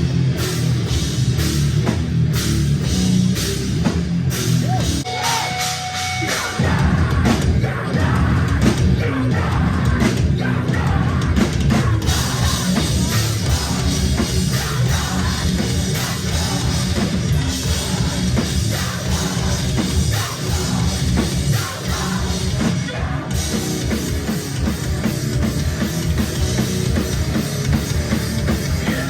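A heavy rock band playing live and loud, with a driving drum kit. About five seconds in the low end drops out briefly, and the full band comes back in a second or so later.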